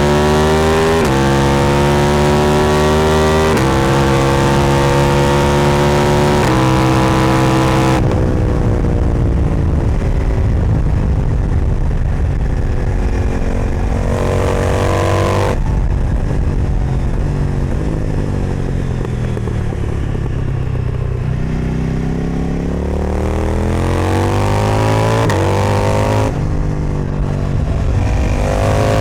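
KTM 990 Duke's parallel-twin engine through an Austin Racing exhaust, pulling hard with upshifts about a second, three and a half and six and a half seconds in. At about eight seconds the throttle closes and the engine winds down under engine braking, with a short rise in pitch around fourteen seconds. It accelerates again from about twenty-one seconds, with one more upshift near the end.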